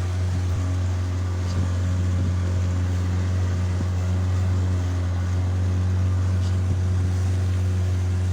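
Motorboat engine running steadily with a constant low drone, holding the same pitch throughout.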